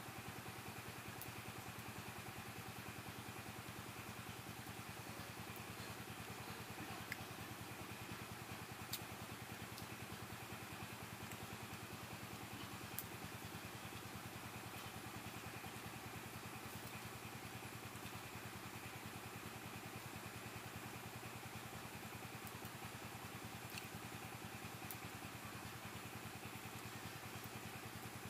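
A steady faint hum with a thin high whine above it that stays constant throughout, with a few light clicks in the middle and near the end.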